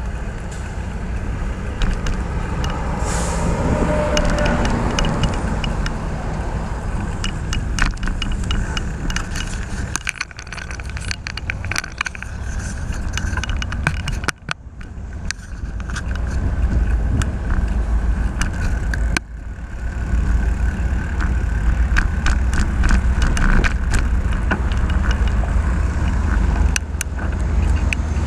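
Wind rumbling on the microphone while riding a bicycle along a road, with passing car traffic; one vehicle goes by about three to five seconds in. Frequent sharp clicks and rattles run through it.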